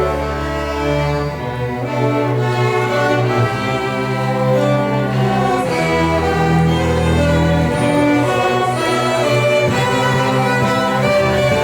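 String orchestra playing: violins carry the melody over sustained cello and bass notes that change every second or two.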